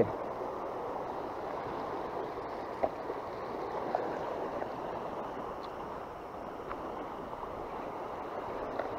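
Steady rushing of a fast-flowing river, with a few faint, short clicks scattered through it.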